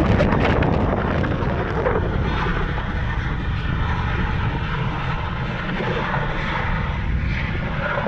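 A CH-47 Chinook tandem-rotor helicopter flies overhead, its rotors and engines running steadily.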